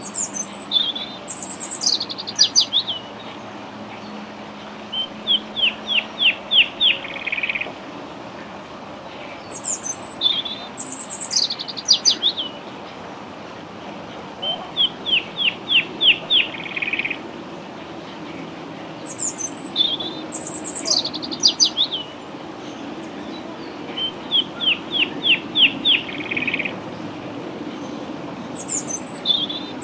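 A songbird singing: bursts of high, falling chirps followed a few seconds later by a fast trill of about eight notes, the phrase repeating about every nine and a half seconds.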